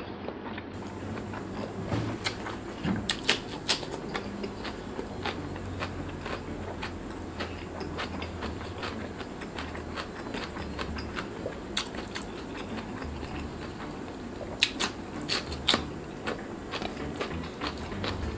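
A person chewing and eating rice and omelette by hand, with many short wet mouth clicks and smacks throughout, in tighter clusters about three seconds in and near the end.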